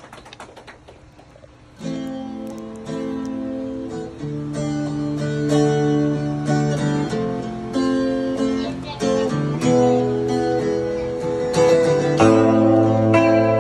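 Acoustic guitar and electric guitar playing a song's instrumental intro live. The strummed chords come in suddenly about two seconds in, after faint room noise, and carry on changing every second or so.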